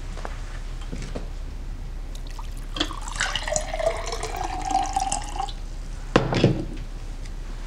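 Water poured into a drinking glass for about two and a half seconds, its pitch rising slightly as the glass fills. A single knock follows a little later.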